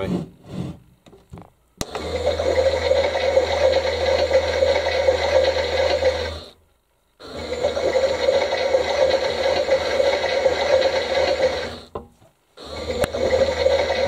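Toy front-loading washing machine's small battery motor turning the drum with a steady whirring buzz, in runs of about five seconds that stop briefly twice and start again: the wash action reversing the drum's direction. A couple of light clicks near the end.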